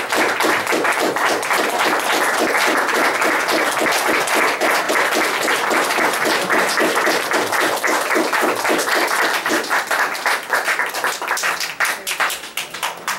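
Audience applauding steadily, thinning to a few scattered claps near the end.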